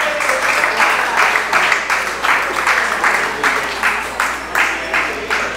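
Rhythmic clapping in time, about three claps a second, over dance music.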